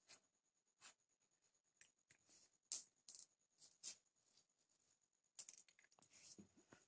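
Faint, short scratchy brushes and light taps of a cat's paws swiping and scrabbling on the floor after a small ball, a handful of them, the loudest about three seconds in. A faint steady high whine lies underneath.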